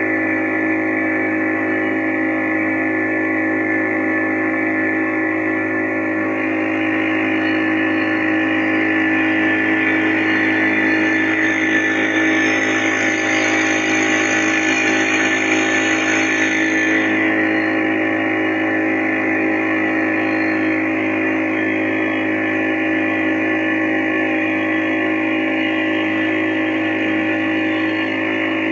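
An engine running at a constant speed, a steady drone with several fixed tones, with a rushing hiss that swells for about ten seconds in the middle.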